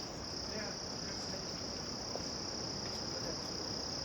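A steady, high-pitched insect chorus keeps up an unbroken shrill drone.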